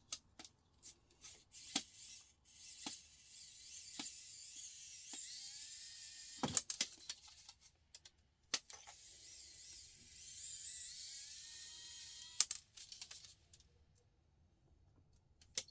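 Cordless electric screwdriver running in three bursts with a high whine, backing screws out of a laptop casing, with sharp clicks and knocks of screws and parts between the runs.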